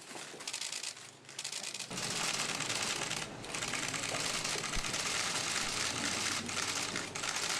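Steady crinkling, rustling noise made of many fine crackles, growing louder about two seconds in.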